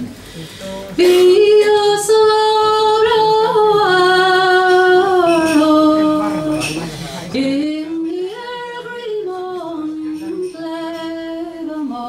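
A woman singing a slow melody in long held notes with small pitch bends, in two phrases, the second starting about seven seconds in.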